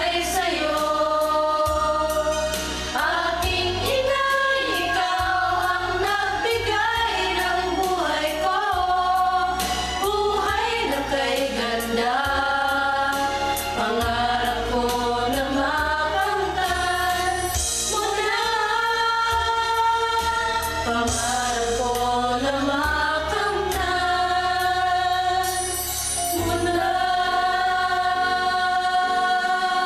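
A small group of mostly female voices, with a teenage boy among them, singing a slow Tagalog song together in harmony through handheld microphones, with long held notes.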